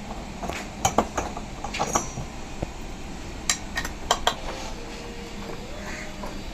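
Metal tools and parts clinking against each other in a series of sharp clinks, over a steady low hum.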